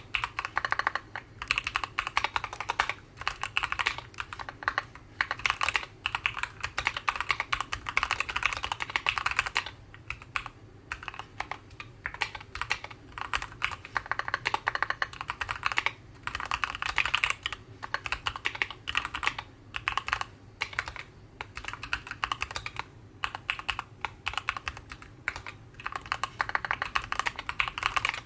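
Typing on a Keychron Q11 mechanical keyboard with Gateron Oil King linear switches and ABS single-shot keycaps: fast runs of keystrokes broken by short pauses. A light, brisk knocking sound, with the keys bottoming out fairly loudly.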